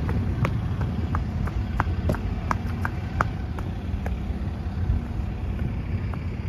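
Footsteps on a wet concrete walkway, about two to three short taps a second, thinning out after about four seconds, over a steady low rumble.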